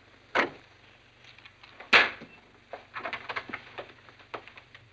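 Thumps and clicks of a door being opened and people stepping in: two sharp knocks, the second louder, then a run of smaller clicks and footfalls.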